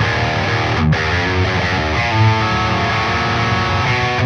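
Electric guitar played through a distorted Friedman Wildwood amp tone, loud and dense, starting abruptly on the first note.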